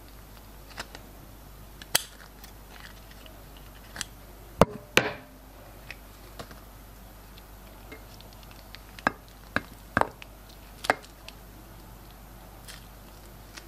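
Glossy slime being worked by hand, giving a scattered series of sharp sticky clicks and pops, about eight of them and loudest near the middle.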